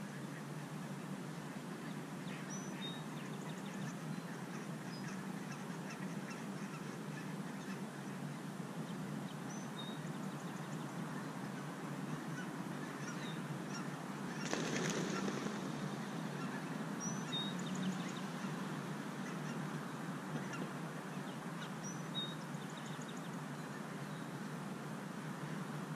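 Distant geese honking over a steady low background hum, with short high bird chirps now and then. A brief rush of noise comes about halfway through.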